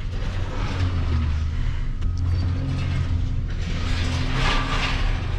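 A vehicle's engine running with a steady low hum as it is manoeuvred, with a brief rush of noise about four and a half seconds in.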